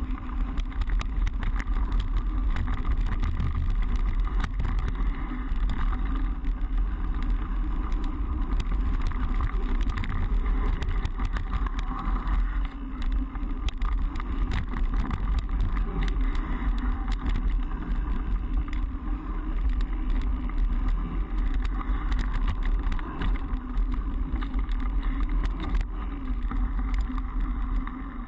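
Mountain bike ridden along a cross-country trail, heard through the GoPro Hero4 Black's microphone: steady wind rumble on the microphone under tyre noise, with frequent small clicks and rattles of the bike over rough ground.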